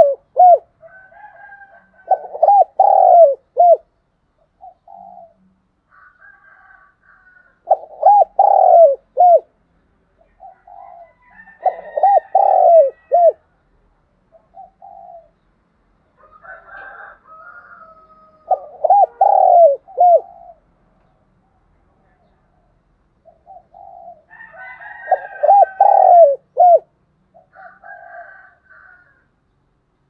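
Caged decoy spotted dove cooing over and over, a phrase of several arched notes every five or six seconds, with softer, higher notes between the phrases. This is the urging call (gáy thúc) that keepers use to lure wild spotted doves.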